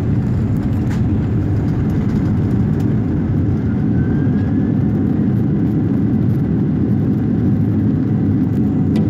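Steady roar of a jet airliner's engines and rolling noise, heard inside the passenger cabin as the plane speeds down the runway.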